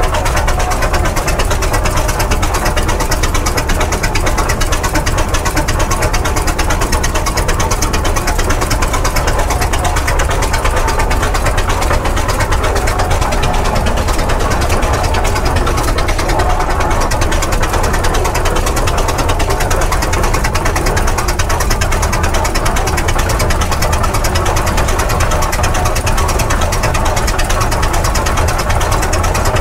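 Avery 40-80 prairie tractor's engine running steadily as the tractor drives, heard up close from the operator's platform: a loud, fast, even beat of firing strokes that holds without change.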